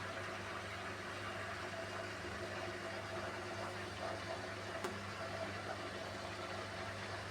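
New drain pump of a Beko washing machine running with a steady hum as it drains the drum, with one faint click about five seconds in.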